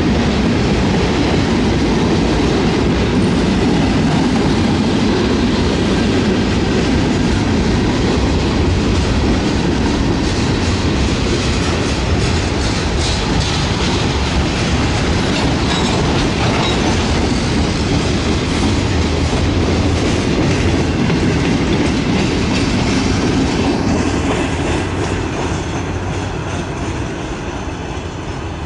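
Freight cars of a CSX train rolling past close by: the steady noise of steel wheels running on the rails. Near the end the sound fades as the last cars move away.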